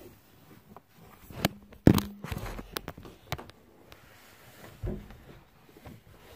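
A few knocks and thuds with light rustling between them as things are handled and shifted about, the loudest a sharp thump about two seconds in.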